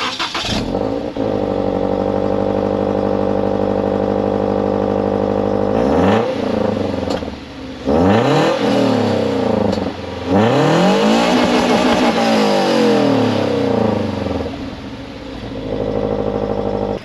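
Toyota GT86's 2.0-litre flat-four engine with a freshly fitted Tomei unequal-length exhaust header, idling steadily and then revved three times, a quick blip, a second rev and a longer rev that climbs and falls back, before settling back to idle.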